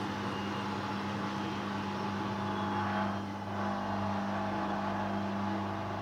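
Hoover Dynamic Rapid 30 washing machine running on its rinse cycle: a steady hum with a hiss of water over it, dipping briefly about halfway through.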